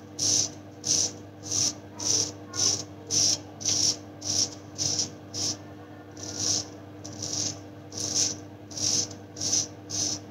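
Replaceable-blade straight razor scraping through lathered stubble in short, quick strokes, about three every two seconds, with a brief pause about six seconds in.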